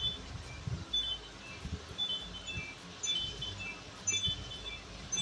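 Light background music of short, repeated chime-like notes. Under it, a few soft, irregular low knocks from a spatula stirring spiced corn kernels in a metal kadhai.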